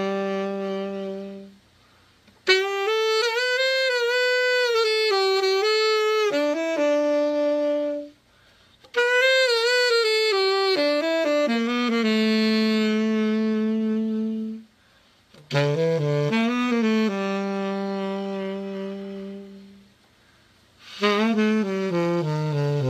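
Tenor saxophone, a Selmer Mark VI copy, played in phrases of long held notes with vibrato and short runs, with brief pauses between phrases: a play test of the horn after a full overhaul.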